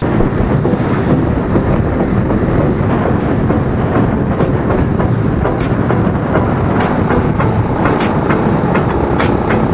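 Motorstar motorcycle ridden at road speed, heard from a camera on the bike: its engine running under a loud, steady rush of wind on the microphone, with scattered light ticks.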